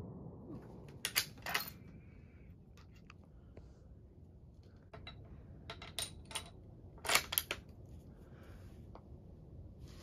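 Metallic clicks and clacks of a Gras single-shot bolt-action rifle's bolt being worked after a black powder shot, opened to extract the fired case and closed again. The clicks come in two clusters, a couple of sharp ones about a second in and a denser group from about six to seven and a half seconds in.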